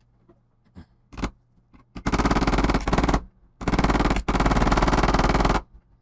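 A metal blade is scraped hard across hardened super glue and baking soda resin on a plastic laptop palm rest. The blade chatters in two fast rattling runs, the first about a second long and the second about two seconds long, after a few faint clicks. The resin is quite hard.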